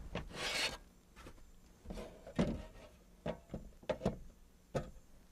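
A metal fold-out stove tray sliding and scraping out of a wooden cabinet, then a string of knocks and clatters of metal and wood as it is set up.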